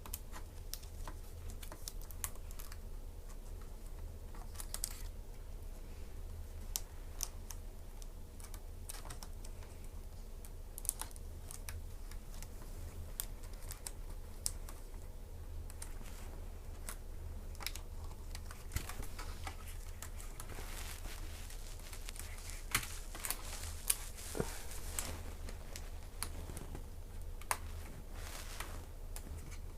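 Scattered plastic clicks, taps and rustles of a replacement laptop keyboard being handled and pressed into a ThinkPad's chassis, busiest about two-thirds of the way through, over a steady low hum.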